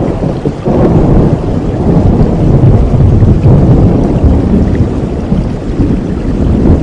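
A long rolling thunder rumble that swells about a second in and rolls on, deep and loud, over steady rain.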